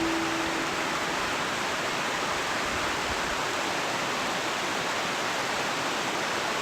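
Steady, even rush of a waterfall, water pouring down a rock face. A last held musical note fades out in the first moment.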